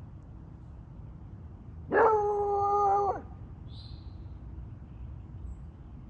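A dog howling: one long, even-pitched note of just over a second, starting about two seconds in.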